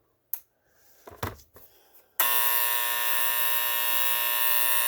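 Vintage General Electric model 8127 flip-number alarm clock's electric buzzer alarm going off about two seconds in: a loud, steady buzz. Before it, a click and a little handling noise.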